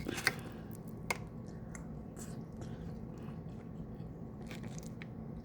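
A person chewing a mouthful of food close to the microphone, with a few small sharp clicks, the clearest near the start and about a second in.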